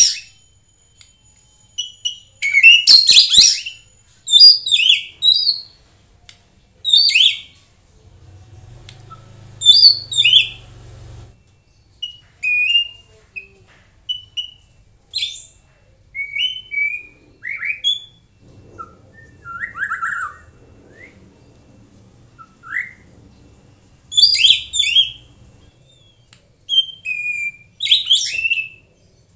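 White-rumped shama singing: loud, short phrases of clear whistled and gliding notes mixed with sharp chip-like notes, each phrase followed by a pause of about a second. A thin, steady high whistle sounds under the song for the first few seconds.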